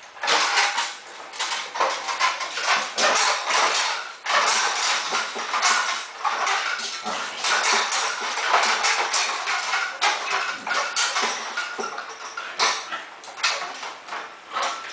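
Staffordshire bull terrier playing tug on a rope tied to a Bowflex home gym's cable. The pulleys, cable and flexing rods rattle and clank continuously as the dog yanks and thrashes, with the dog's growling mixed in and a couple of brief lulls.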